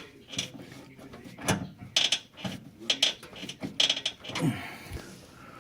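Repeated creaks and knocks from a 2004 Mustang's rack-and-pinion steering rack shifting in its mounts, several strokes in quick succession: the rack's mounting bushings are worn.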